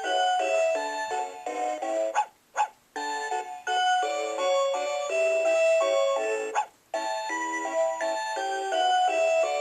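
Electronic toy melody played as a series of short, clean notes through a See 'n Say Baby toy's small speaker. It is broken twice by brief sound effects, about two seconds in and near seven seconds.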